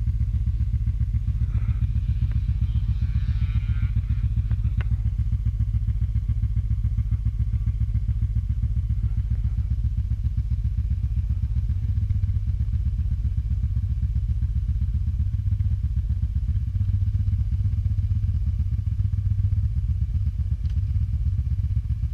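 Quad bike engines idling with a steady, even low throb.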